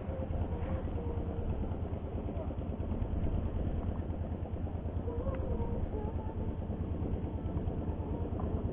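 A fishing boat's engine idling: a steady low rumble.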